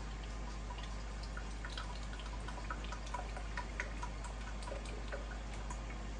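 Avocado oil being poured from a bottle into a measuring cup, with faint irregular glugs and drips.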